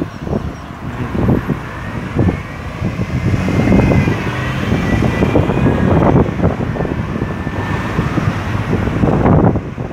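Cars and SUVs driving past close by in a steady stream, engines and tyres on the asphalt, swelling as each one goes by.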